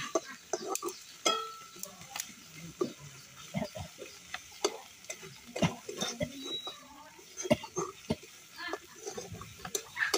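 Metal spatula stirring in a metal cooking pan, with irregular clinks, taps and scrapes against the pan.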